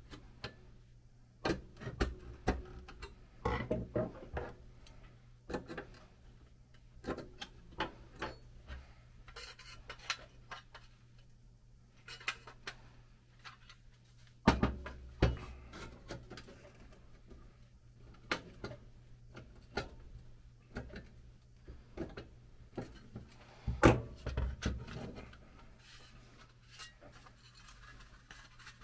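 Pressed-steel toy airplane parts being pried and handled on a workbench: scattered metal clicks, scrapes and light knocks as a screwdriver works at the seam and the fuselage halves are pulled apart, with a louder clunk about halfway through and another past the three-quarter mark.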